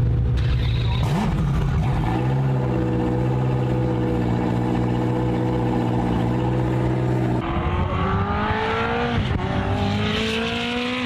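High-performance supercar engine running at steady high revs, then accelerating hard with its pitch climbing, briefly dipping about nine seconds in before climbing again.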